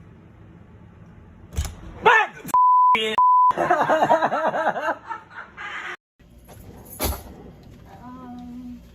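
A thump and a startled yell, then a steady high censor bleep in two pieces over a swear word, followed by more loud yelling. Another sharp thump comes about two seconds later, then a faint voice.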